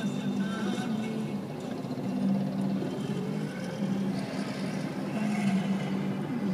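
Mixed road traffic at a busy intersection: auto-rickshaw, motorcycle and car engines running and passing, with a steady low engine hum that comes and goes and a few rising and falling engine notes.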